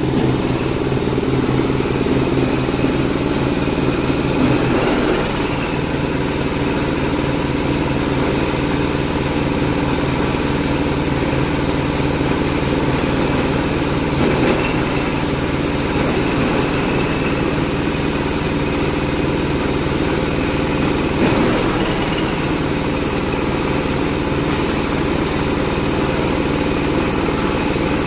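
Cocopeat grinding machine running steadily with a low, even engine-like drone, swelling briefly about three times.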